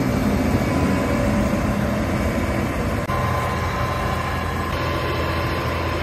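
Lovol combine harvester running: a steady engine and machinery drone with a thin steady whine over it, shifting slightly about three seconds in.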